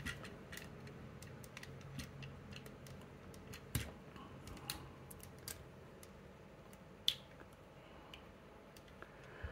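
Faint, scattered clicks and ticks of hard plastic parts on a Transformers Studio Series 86 Optimus Prime figure being adjusted by hand as its smokestacks are set, with two sharper clicks about four and seven seconds in.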